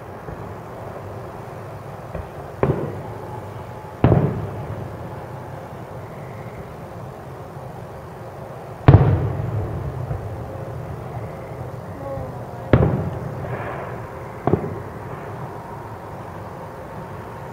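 Distant aerial firework shells bursting: five booms, each trailing off in a rolling echo, the loudest about nine seconds in.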